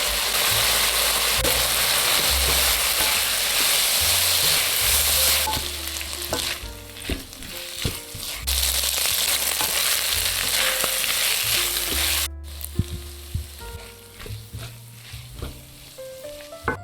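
Chicken and potato sizzling in a hot pan as they are stir-fried. A loud, steady sizzle for about the first five seconds turns quieter, broken by repeated clinks and scrapes of a utensil against the pan.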